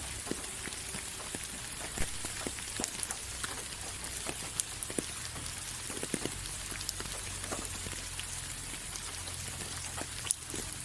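Rain falling as a steady hiss, with many individual drops ticking on a surface at irregular moments and one sharper drop near the end.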